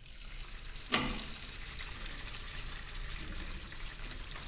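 Leftover liquid draining out of a stainless-steel still boiler through a partly opened drain valve into a PVC drain pipe, a steady rush of flow. There is one sharp click about a second in.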